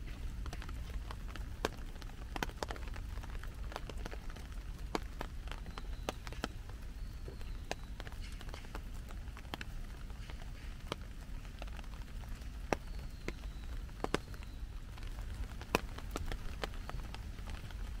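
Steady rain, with irregular sharp drops tapping on an umbrella overhead. A few faint high chirps come and go.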